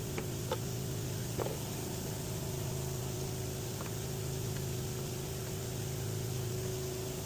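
The 2016 Jeep Cherokee's 3.2L Pentastar V6 idling steadily after new spark plugs and ignition coils, with no sign of the earlier misfire. A few light clicks come in the first few seconds.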